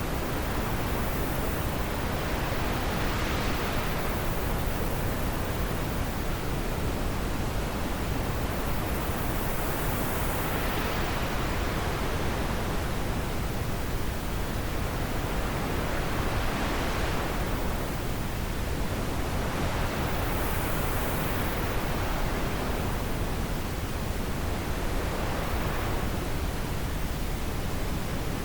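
Wind blowing in gusts: a steady rushing noise that swells and eases every several seconds.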